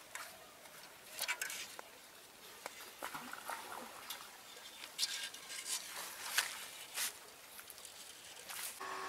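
Faint, scattered rustles and clicks, a dozen or so brief ones, the loudest about five and seven seconds in.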